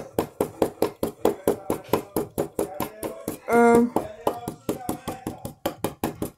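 Rapid tapping and scraping of a small chisel chipping at a plaster fossil-dig egg, about six taps a second. A short hummed note sounds about halfway through.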